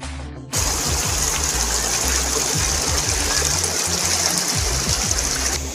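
Shallow stream rushing and splashing over rocks, a steady hiss of water that comes in suddenly about half a second in. Background music with a low bass line plays underneath.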